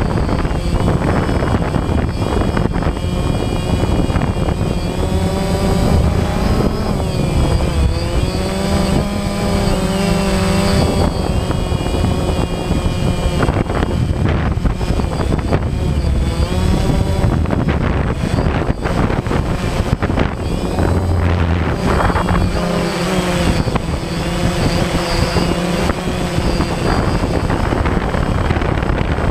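Quadcopter drone's motors and propellers whining, heard from its onboard camera, the pitch rising and falling repeatedly as the throttle changes.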